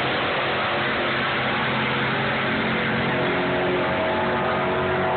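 A 1972 Ford Mustang and another car running at full throttle down a drag strip: a loud, steady engine drone over a broad wash of noise.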